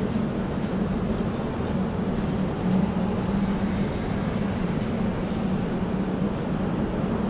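Steady indoor ambience of a near-empty shopping-centre concourse: an even rumbling drone with a constant low hum and no voices.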